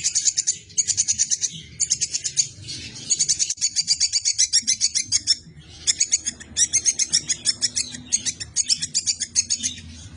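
Tupai (squirrel) chattering call: rapid trains of sharp, high chirps, about ten a second, in bouts of a second or two with short pauses. It is played as a master call for training songbirds.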